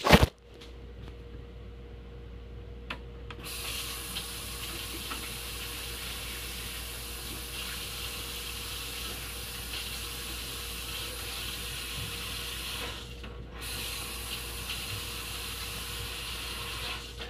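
A loud knock at the start, then a steady rushing hiss that breaks off for a moment about two-thirds of the way through, over a faint steady hum.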